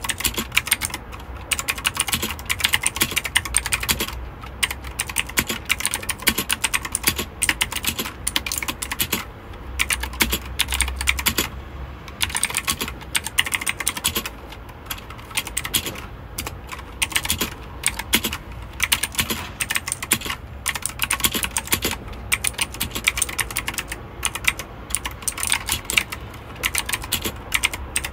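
Typing on a mechanical keyboard: fast runs of key clicks with short pauses between bursts.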